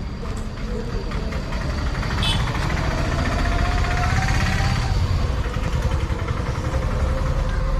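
Motor vehicle engine running steadily with a low, pulsing rumble.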